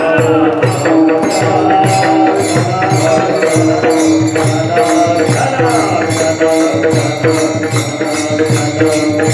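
Kirtan accompaniment: a harmonium holding chords over a rhythmic hand-drum beat, with small hand cymbals struck about three times a second.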